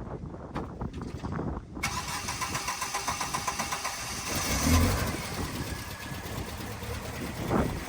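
A few knocks, then a car engine starts about two seconds in and keeps running at idle with a steady rhythm.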